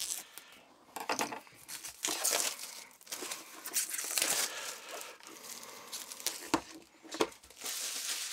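Plastic shrink wrap being torn and peeled off a paperback manual, crinkling and crackling irregularly, with two sharp crackles late on.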